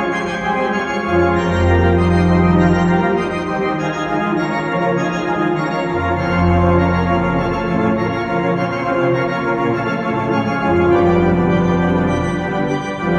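Church organ playing slow, sustained chords over deep held bass notes that change every five seconds or so.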